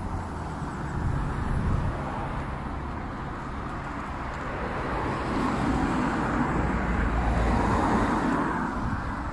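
A car passing on the adjacent road, its tyre and engine noise swelling to a peak about three-quarters of the way through, then fading.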